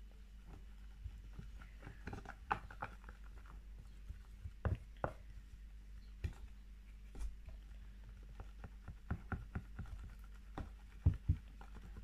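Irregular clicks and soft taps of a thick shampoo and corn flour slime mixture being stirred in a container, a few of them louder about five seconds in and near the end.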